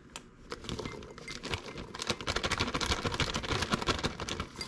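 Plastic bag of mini marshmallows crinkling as they are poured into a glass tumbler, a dense, irregular run of small crackles and taps.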